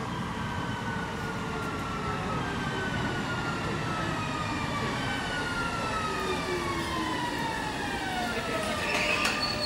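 Skåne X61 (Alstom Coradia Nordic) electric multiple unit braking into the platform: the whine of its traction motors falls steadily in pitch, several tones sliding down together as it slows. A loud hiss starts near the end as it comes to a stop.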